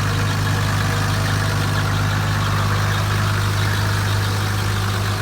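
Car engine running steadily, heard from inside the car: an even low drone with a faint hiss over it.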